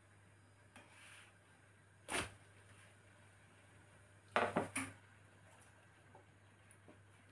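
Kitchen clatter from a frying pan and plastic spatula being handled on a glass hob: one knock about two seconds in, then a quick rattle of three or four clicks about four and a half seconds in, over a faint steady hum.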